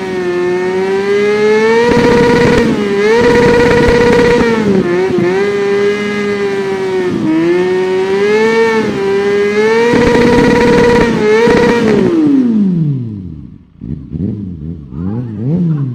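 Kawasaki Ninja 400 parallel-twin motorcycle engine revving, held high with small dips and rises in revs. About twelve seconds in the revs fall away, then a few short, quieter blips of the throttle near the end.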